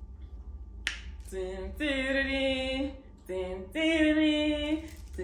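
A woman's voice singing unaccompanied in several short phrases of long held notes, after a single sharp click about a second in.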